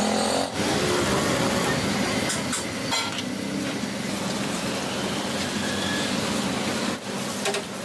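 Samosas deep-frying in a large kadai of hot oil, a steady sizzle with a low hum underneath. A few sharp metal knocks from the long-handled strainer stirring and lifting them against the steel pan.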